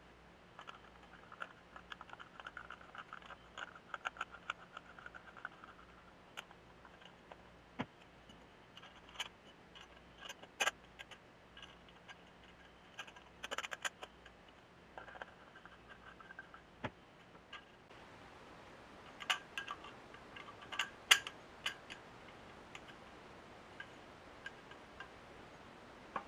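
Small metal muffler parts (end-cap rings, a flat gasket plate and the cylindrical core of a Yamaha SR500 muffler) clicking and clinking against each other as they are handled and fitted together by hand. A light scraping runs through the first few seconds, and the sharpest clinks come late on.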